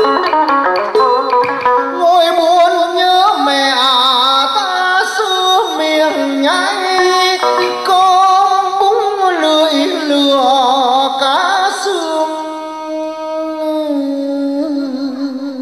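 Vietnamese traditional song: plucked lute notes alone for about two seconds, then a singing voice with heavy wavering ornamentation over the lute, settling into a long held note that fades out near the end.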